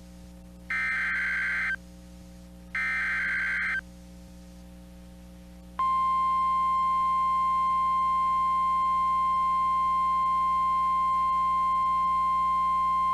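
NOAA Weather Radio SAME alert: two one-second bursts of warbling digital header tones about a second apart, then, about two seconds later, the steady single-pitched 1050 Hz warning alarm tone starts and holds. The sequence opens a severe thunderstorm warning broadcast.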